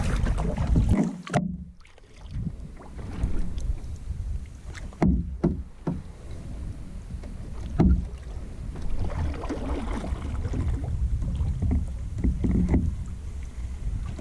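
Paddling a canoe: the paddle strokes and the water moving against the hull, with a few short knocks, over a steady low rumble of wind on the microphone.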